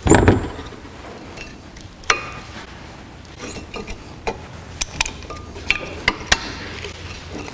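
Metal clinks and scrapes of old brake pads being worked out of a front disc brake caliper bracket: a loud clatter at the very start, then a string of sharp clicks, some ringing briefly.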